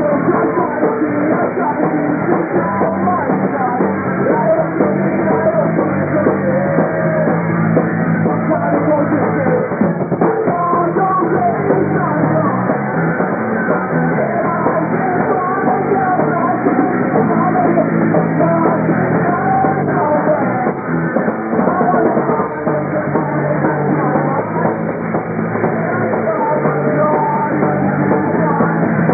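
Rock band playing live and loud, with a male singer singing into the microphone over guitars and drums; the sound is dull and muffled, with no highs, as captured on an old VHS camcorder.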